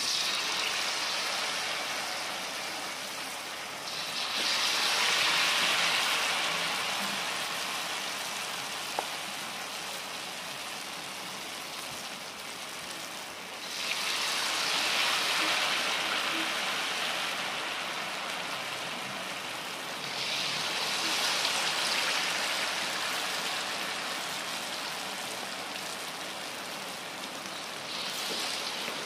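Batter-coated breadfruit slices deep-frying in hot oil in a wok, a dense, steady sizzle. It swells louder four times and slowly dies back after each, as fresh pieces go into the oil.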